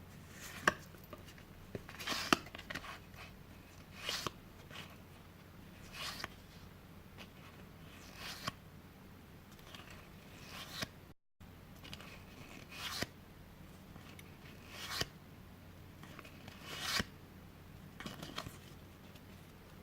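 Game cards being handled and laid down one after another, a short papery slide or rustle about every two seconds.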